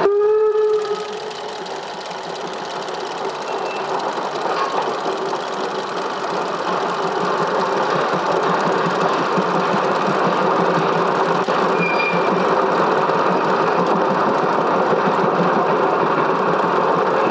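Narrow-gauge steam train: a short whistle blast for about a second at the start, then the train running past with a dense, steady rolling clatter that builds over the first few seconds and then holds.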